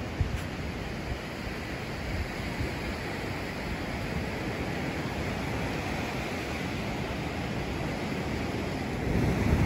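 Steady wash of sea surf breaking on a sandy beach, with wind buffeting the microphone. The low wind rumble grows stronger near the end.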